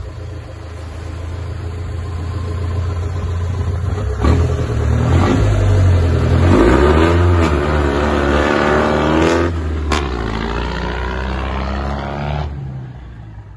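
Converted GAZ-63 off-road truck with a Mercedes engine driving past, the engine revving up and easing off as it goes. It is loudest about halfway through, with a sharp click about ten seconds in, and the sound drops off sharply as the truck pulls away near the end.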